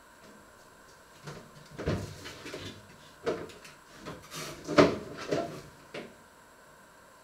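Kitchen clatter: a string of knocks and clunks from someone working at the stove and sink, the loudest about two-thirds of the way through.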